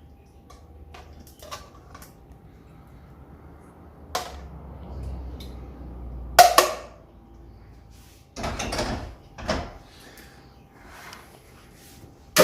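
Kitchen utensils clinking and scraping against a pan and plate while pasta is served, in scattered knocks with one sharp clack about six seconds in.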